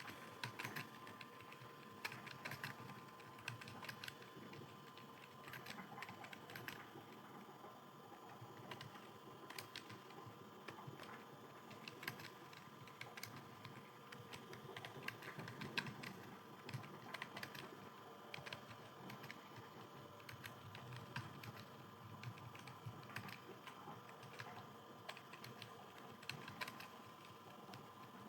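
Computer keyboard typing, quiet and continuous, with irregular key clicks at a fast pace over a faint steady hum.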